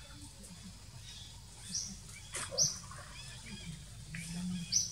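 Short, high-pitched chirping calls, three of them spread over the second half, over a steady forest background, with one sharp click in the middle.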